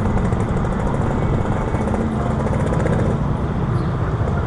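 Motorcycles riding at low speed: a steady engine drone mixed with road and wind noise.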